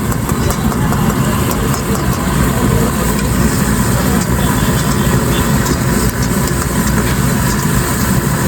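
A steady low engine-like rumble with busy street noise and a few faint clicks.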